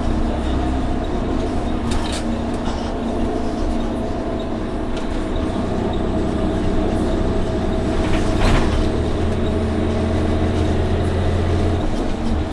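Interior sound of an Orion VII NG CNG transit bus underway, its Cummins ISL-G natural-gas engine and Allison B-400R automatic transmission running steadily under the cabin noise. A sharp knock comes about eight seconds in, followed by a louder low drone for about three seconds.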